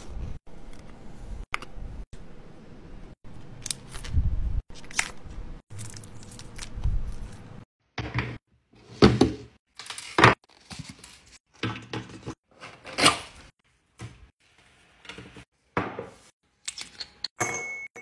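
Small objects and packaging being handled for an unboxing: a string of short clicks, knocks and taps, broken by several abrupt cuts, with louder separate knocks in the second half.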